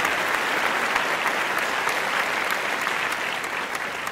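Crowd applause: dense, steady clapping that slowly gets quieter.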